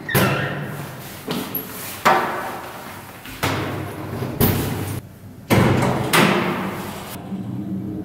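A series of heavy thuds and door bangs from an old apartment-block lift and stairwell doors, about seven in a row at irregular intervals, each echoing in the stairwell; the last one cuts off suddenly.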